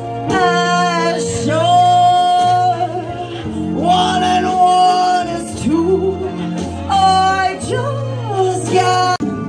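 A song with a backing track: a voice sings long held notes with vibrato that slide between pitches, over steady low bass notes.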